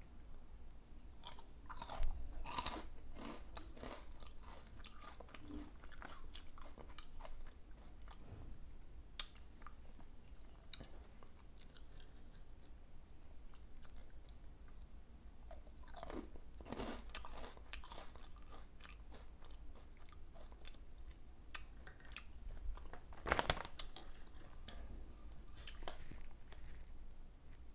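Flamin' Hot Cheetos and Takis being bitten and chewed, a run of crisp crunches and crackles with no talking. The loudest bites come about 2 seconds in and again about 23 seconds in.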